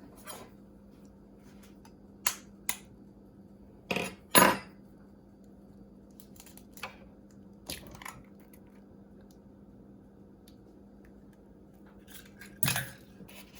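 Scattered sharp clinks and knocks of kitchen bowls and utensils, the loudest about four and a half seconds in, over a faint steady hum.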